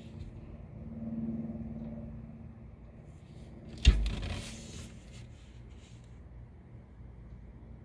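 A paper catalog page being turned: a sharp knock about four seconds in, then about a second of paper rustling, over a steady low hum.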